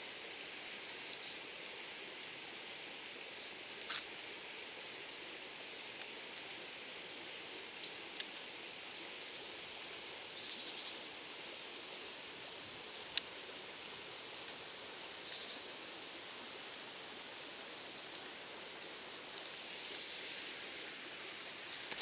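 Quiet riverside ambience: a steady faint hiss with small birds chirping now and then and a few faint clicks.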